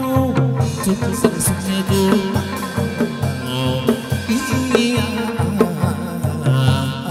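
Chầu văn ritual music: a traditional Vietnamese ensemble playing a melody over a steady drum beat of about two beats a second.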